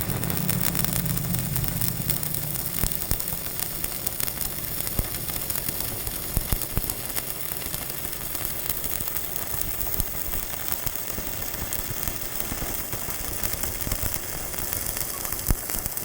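Electric arc welding: the arc crackling and sizzling steadily as a bead is laid, then cutting off suddenly at the end.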